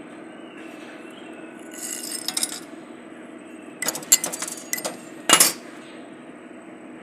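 Arc welding: three short bursts of crackling and sharp clicks as the electrode's arc is struck, over a steady hum.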